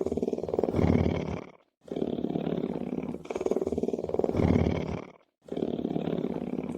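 Lion purring: a low, finely pulsing rumble in two breaths, the second breath louder and deeper, then a brief silence. The same cycle repeats identically about every three and a half seconds.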